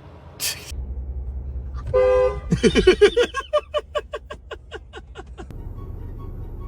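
Car horn honking: a short toot about two seconds in, then a rapid stuttering run of pulses for about three seconds, over a low rumble.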